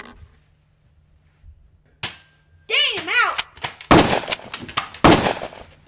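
Gunshot sound effects laid over the blaster play: a single sharp crack about two seconds in, a quick run of rising-and-falling whistling tones, then two loud shots about a second apart near the end.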